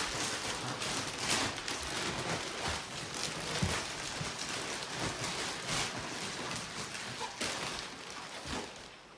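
Clear plastic wrapping around a vacuum-packed foam mattress rustling and crinkling as it is lifted and pulled, a dense, continuous crackle that tapers off near the end.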